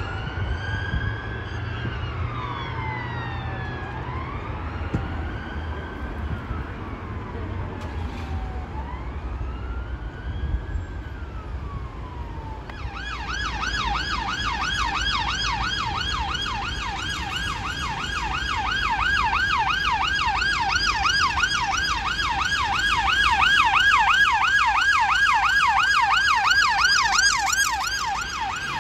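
Emergency vehicle sirens on a slow wail, two of them sweeping up and down out of step about every three to four seconds over a low engine rumble. About thirteen seconds in, a police car's siren takes over on a fast yelp, about three to four sweeps a second, getting louder as it nears and easing slightly near the end.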